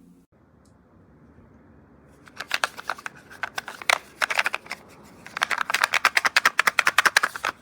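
Bursts of rapid, sharp clicking, running at about ten clicks a second in the loudest stretch during the second half.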